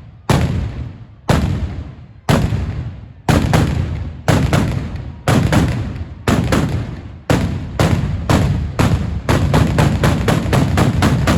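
Fireworks display: loud aerial shell bursts, each with a long echoing tail. They come about once a second, soon in pairs, and quicken into a rapid run of bangs near the end.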